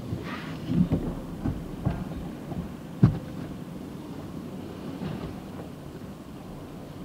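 Low rumble heard from inside a car's cabin as it rolls slowly out of a tunnel car wash, with scattered knocks and one sharp thump about three seconds in.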